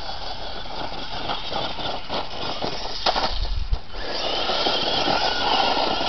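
Traxxas 1/16 E-Revo VXL RC truck's brushless electric motor and gears whining as it drives on loose dirt, with dirt and gravel crackling off the tyres. There are a few sharp knocks and a brief low rumble about three seconds in, and the whine grows louder near the end.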